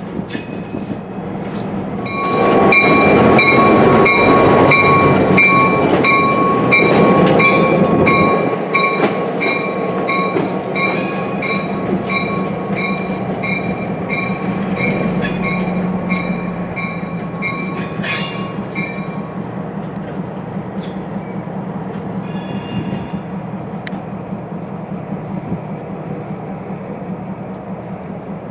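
A Norfolk Southern four-axle diesel locomotive running light and moving slowly, its engine humming steadily. A bell rings about twice a second from a couple of seconds in until about two-thirds of the way through, then stops. A few sharp metallic clanks sound just before the bell stops.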